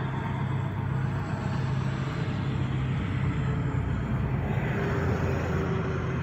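A motor running steadily: an even low hum with a rushing noise over it, unchanging throughout.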